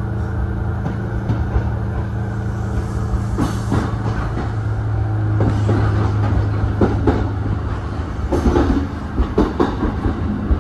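Kintetsu 2000 series electric train running, heard from inside the front of the car. There is a steady low hum, with irregular clicks and knocks from the wheels on the rails that come more often in the second half.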